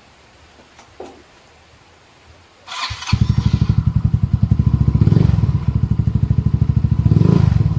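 Yamaha Mio MXi 125 scooter's single-cylinder engine, breathing through a JVT Power Pipe V3 aftermarket exhaust, is started about three seconds in. It then runs with a loud, fast pulsing exhaust beat that swells twice.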